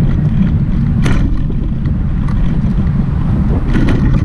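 Wind buffeting the microphone of a GoPro on a moving bicycle, a steady low rumble. A few sharp knocks or rattles cut through it about a second in and again near the end.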